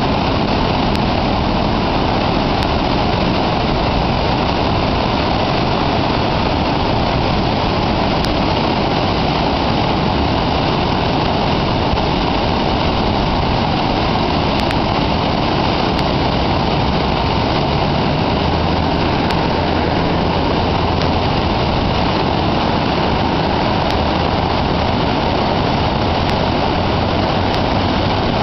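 Swollen, muddy river rushing through whitewater rapids over rocks: a loud, steady roar of water that does not let up.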